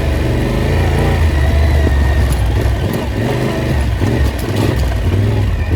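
Engine of an off-road vehicle running on a dirt track, the throttle rising and easing, over a heavy low rumble.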